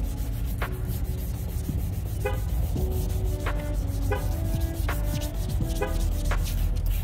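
Wet sanding of a hazed plastic headlight lens with 400-grit abrasive: a steady, continuous rubbing scrub that strips the oxidized haze. Light background music with held notes plays under it.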